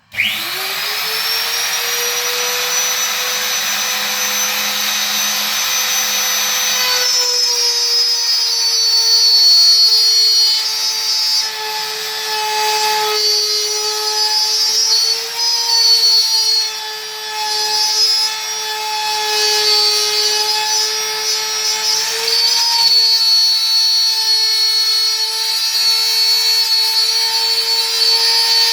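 Electric orbital sander switched on, its motor whining up to speed within about a second, then sanding a Corian solid-surface countertop: from about seven seconds in the pitch drops a little and wavers as the pad is worked against the surface under load.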